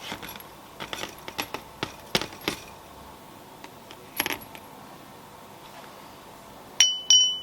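Small steel parts clinking and knocking as they are handled. Near the end come a few loud, sharp metal strikes, each of which rings.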